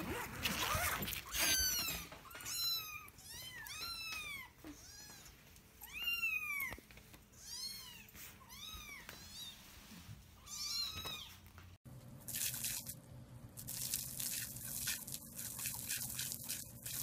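A kitten mewing again and again, about a dozen short high-pitched mews. About 12 seconds in they give way to the steady hiss and splash of water spraying from a garden hose.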